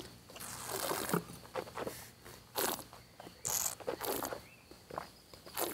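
Red wine being tasted: slurped through the lips and swished around the mouth, heard as an irregular series of short hissing, sloshing slurps.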